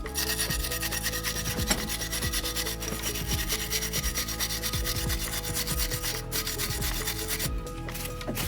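Steady, rapid rubbing or sanding noise, like an abrasive being worked back and forth over a surface.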